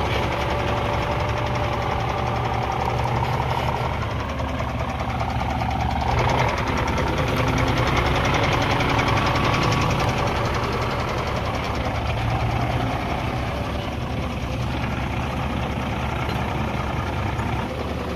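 Hino truck's diesel engine running steadily at low speed.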